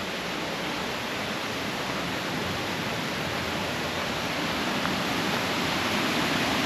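Steady rush of fast-flowing water, an even hiss with no breaks, growing slowly louder.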